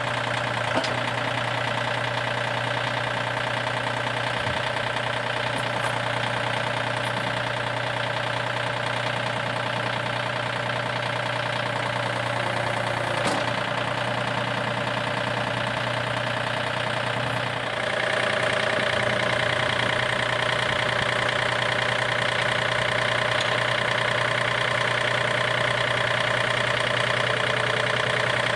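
John Deere 2032R compact tractor's three-cylinder diesel engine running steadily at idle; it gets louder about two-thirds of the way through and holds there.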